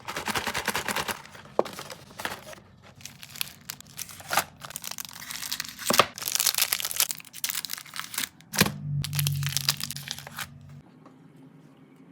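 Plastic snack and sweet wrappers crinkling as packages are handled and set in place, with sharp clicks and taps among the rustle. It stops near the end.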